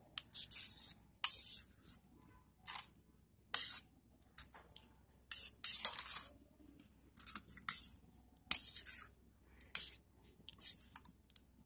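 A metal spoon stirring boondi and buttermilk in a steel dish: a run of short, irregular scraping and swishing strokes.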